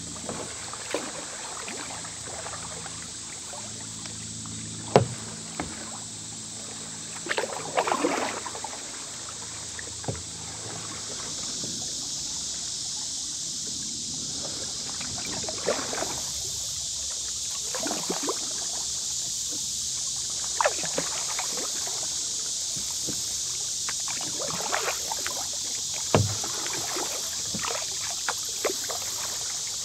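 Kayak paddling on a calm river: paddle blades dip and splash at irregular intervals, with a sharp knock about five seconds in, likely the paddle striking the hull. A steady high hiss runs underneath.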